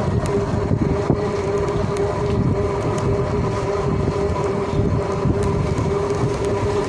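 Riding on a three-wheeled van rickshaw along a road: a steady rumble from the wheels and wind on the microphone, with a constant whine running through it.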